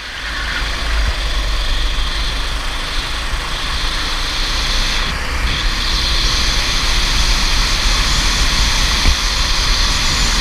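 Go-kart running at speed on a track: a steady engine drone mixed with wind rumble on an onboard microphone. The sound dips briefly right at the start and builds back up over the next second.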